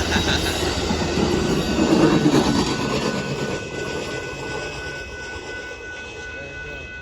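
Amtrak Texas Eagle passenger train rolling past the crossing, its rumble fading steadily as it moves away. A few steady high ringing tones come through in the second half as the train noise drops.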